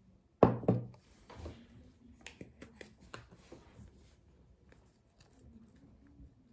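Two quick knocks of a ceramic bowl against a cooking pot, followed by faint light clicks and rustling of kitchen handling.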